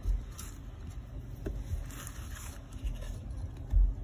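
A steel pick scraping and clicking against the retainer clip on the pulley of a Stihl trimmer's recoil starter as the clip is pried off, with a few light clicks and a dull knock of the plastic housing near the end.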